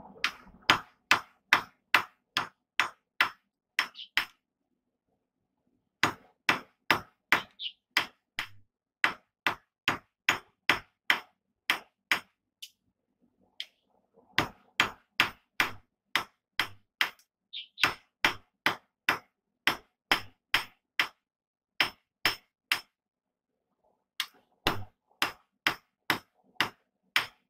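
Hand hammer forging a hot steel bar held in tongs on a steel block anvil: sharp, even blows about two and a half a second, in four runs with short pauses between.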